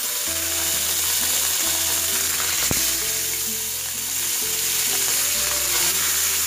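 Small whole puti fish (pool barb) frying in hot oil in a nonstick pan: a loud, steady sizzle. The fish have just gone into the oil, still wet from their salt-and-turmeric rub.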